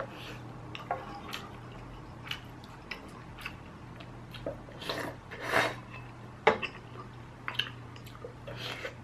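A person eating hot stew: wet slurps of broth, chewing, and scattered light clicks of spoon and chopsticks against the pot, with a longer slurp about five seconds in.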